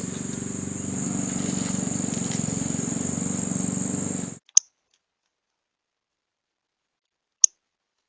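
A steady high-pitched whine over a low droning hum, cut off abruptly about four seconds in. Then dead silence, broken twice by a sharp single click.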